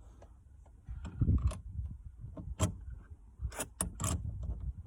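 Irregular clicks, knocks and rubbing of hand-worked parts as a gear knob is screwed onto a car's gear stick, over a low rumble; the sounds start about a second in.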